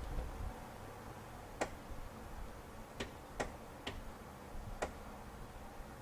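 A Jeep's turn-signal flasher clicking: five sharp clicks at uneven intervals. The turn signals and four-way flashers are faulty, with one side not working.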